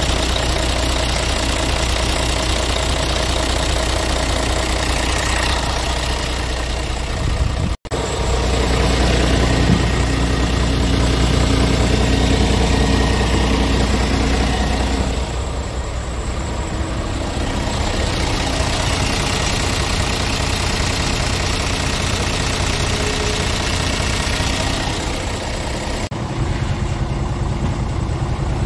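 Scania R truck's diesel engine idling steadily, with a brief cut-out about eight seconds in.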